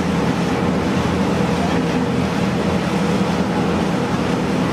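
Fast boat's engines running steadily at speed, a constant drone under the rush of churning wake and spray.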